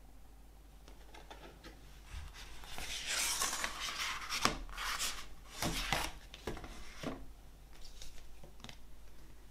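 Paper and card of an album box set's contents being handled by hand: a stretch of rustling and rubbing a few seconds in, then a handful of sharp taps and clicks, with a few lighter ticks near the end.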